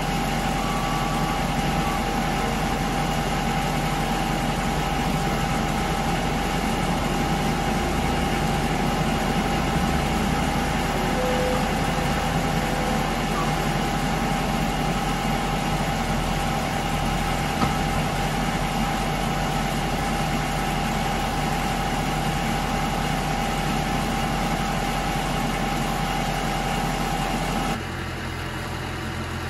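Case 445 skid steer's diesel engine running steadily, with a constant whine over a low rumble. Near the end the sound drops to a quieter, lower engine hum.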